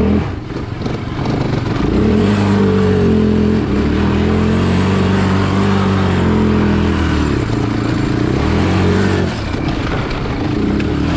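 Small four-wheeler (ATV) engine revving hard while spinning donuts, holding high revs with a wavering pitch for several seconds, then easing off about nine seconds in.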